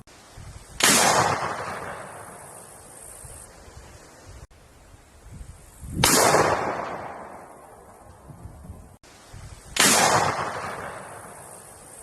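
Three single gunshots a few seconds apart, each a sharp crack followed by an echo that fades away over about two seconds.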